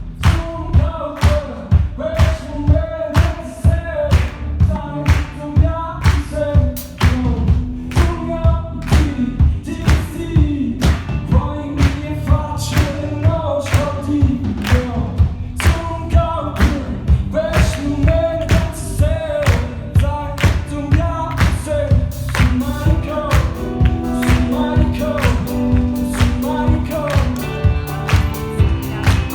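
A singer-songwriter's song performed live: a male voice singing a melody over a band with a steady drum beat.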